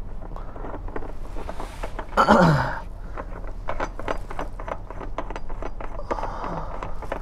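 Irregular light clicks and taps as a brass thru-hull fitting, coated in sealant, is pushed and worked into its hole in a fiberglass boat hull from below. About two seconds in, a short loud exhale with a falling pitch, like a sigh or grunt of effort.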